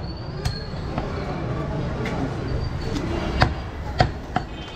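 Butcher's cleaver chopping goat meat on a wooden tree-stump block: several sharp chops spaced irregularly, the loudest about three and a half seconds in.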